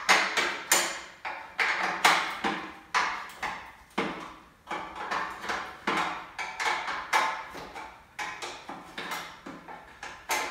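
Wrench undoing the 10 mm bolts on a VW Beetle engine's sheet-metal cooling tin: an uneven run of sharp metallic clicks and clinks, about two a second, each ringing briefly.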